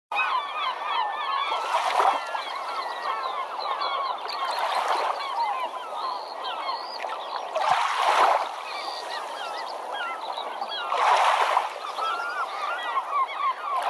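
A flock of birds calling together, many short rising and falling calls overlapping without a break. Waves wash in under them, swelling about every three seconds.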